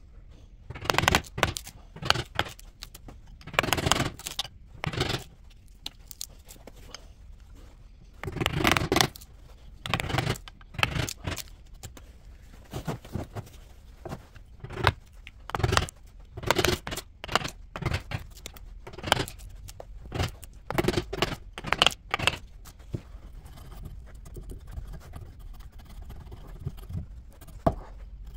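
Hammer striking a chisel to chop bark and wood from the edge of an oak slab: sharp knocks, roughly one a second and often in pairs. Near the end the knocks stop, leaving faint scraping of the chisel on the wood.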